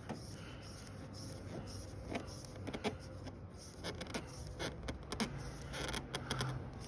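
Scattered light clicks, taps and scrapes of hands working on a riding mower's engine while the new oil filter is being fitted, with a low hum rising about five seconds in.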